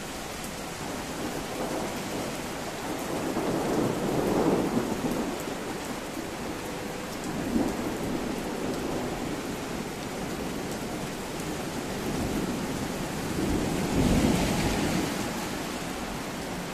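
Thunder rumbling three times over the steady hiss of rain, during a sudden summer thunderstorm.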